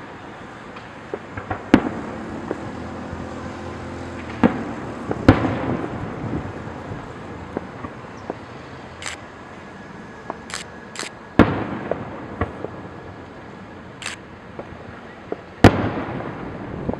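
Fireworks display: aerial shells bursting with about five sharp bangs spread over the stretch, each followed by a rolling echo that fades over a second or two. Brief high-pitched hisses come between the bangs.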